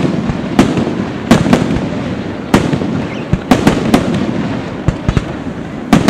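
Firework shells bursting in the air in a rapid, irregular string of sharp bangs, about ten in six seconds, over a steady low background noise.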